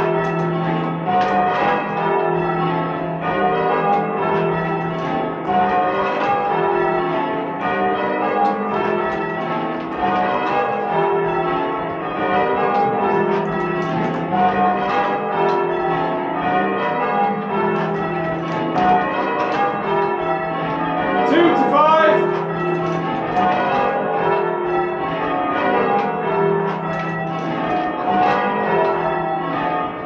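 Church bells rung in changes: a steady stream of strokes falling in repeating descending runs. About twenty-one seconds in, a brief sliding tone rises over the bells.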